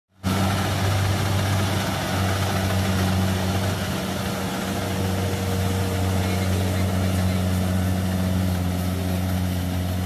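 Kubota DC70 rice combine harvester's diesel engine running steadily under load as the machine cuts and threshes standing rice, a deep even drone with the hiss of the working machinery over it.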